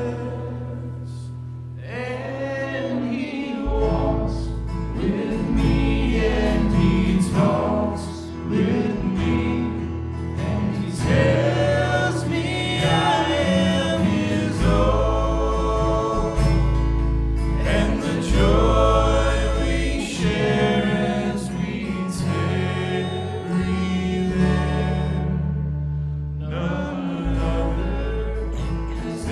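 Gospel hymn music: singing voices over instrumental accompaniment.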